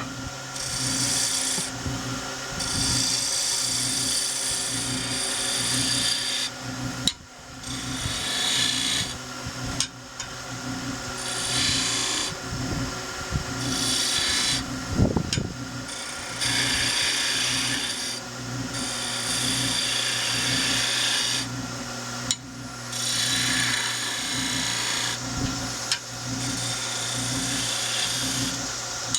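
Wood lathe running with a steady hum and a light regular pulse, while a turning tool cuts a spinning pear-wood spindle in repeated passes. Each pass gives a hiss of shavings lasting one to three seconds, with short breaks between them. There is a single sharp knock about halfway through.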